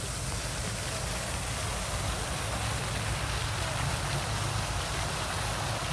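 Fountain water jets splashing steadily into a basin: an even rushing hiss with no breaks.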